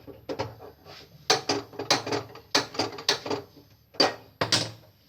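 Gas stove being switched on and lit: about a dozen irregular sharp clicks and clacks, some with a short metallic ring.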